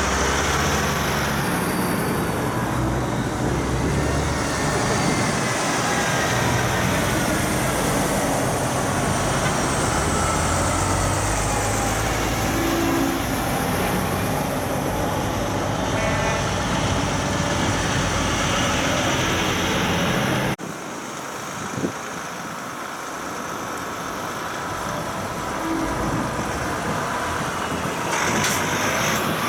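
Convoy of heavy trucks driving past one after another, with diesel engines running and tyres on the road. About two-thirds through the sound drops abruptly and quieter, then swells again as the next truck nears.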